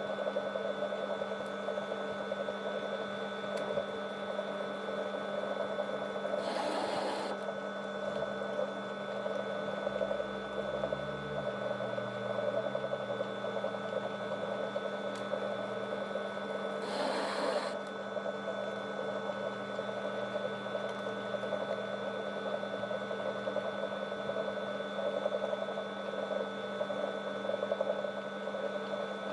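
Metal lathe running steadily with a constant machine hum, with two short hissing bursts about seven and seventeen seconds in.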